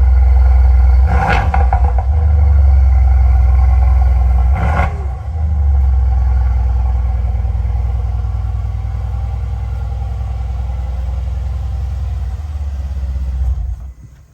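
Mercedes-AMG C63 S twin-turbo 4.0-litre V8 exhaust idling after a cold start, a deep steady rumble with two short louder bursts in the first five seconds. The idle eases slightly and then cuts off suddenly near the end as the engine is switched off.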